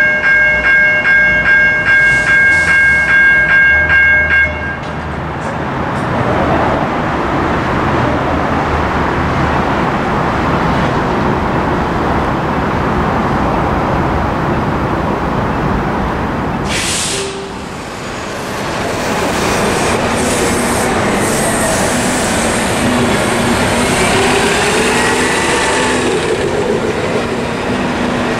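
GE electronic railroad crossing bells ringing with a pulsing electronic tone about twice a second, cutting off suddenly about four seconds in as the gates finish rising. After that comes a steady rumble of a light rail train and road traffic, with a short sharp hiss about two-thirds of the way through and vehicle engines rising and falling near the end.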